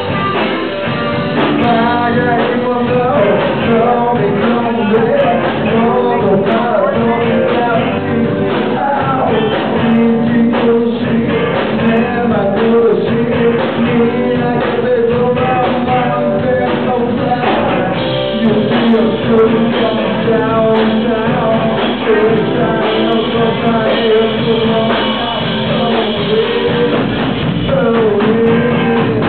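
Live rock band playing: electric guitars, drum kit and male singing, loud and continuous, with a dull, muffled top end.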